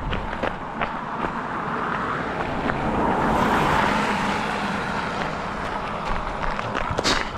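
A car driving past close by, its road noise swelling to a peak about three to four seconds in and then fading away, with scattered footsteps on pavement.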